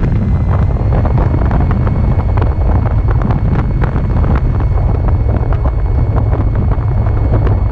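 Heavy wind buffeting the microphone, with the faint steady high whine of the Carbon-Z Cessna 150 radio-controlled plane's electric motor underneath.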